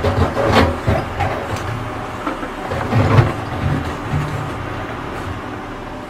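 Plastic toy dump trucks loaded with sand being pushed and handled by hand, with a series of short scrapes and knocks, the loudest about three seconds in, over a low, uneven rumble.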